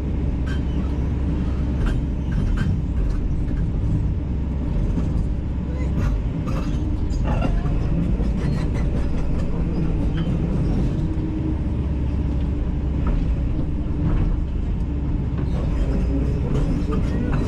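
Kobelco 210LC-9 excavator's diesel engine running steadily under work, with a deep rumble and scattered short knocks and clanks from the machine.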